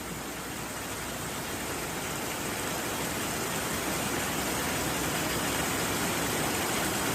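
Steady rush of flowing stream water, growing slightly louder over the seconds.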